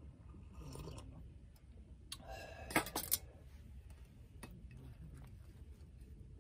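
Faint clicks and handling noises, with a short louder clatter about two to three seconds in that ends in two sharp clicks.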